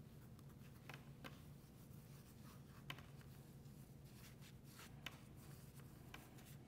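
Near silence: faint rubbing and a few light ticks of fingers massaging a dry spice rub into tilapia fillets on paper towels, over a low steady room hum.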